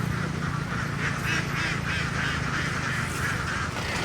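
A flock of farm ducks quacking, many short calls overlapping continuously, over a low steady motor hum that fades away.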